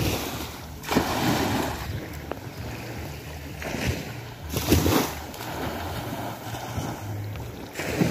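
Wind buffeting the microphone over small waves washing in shallow sea water, with a few louder surges, about a second in and again around five seconds.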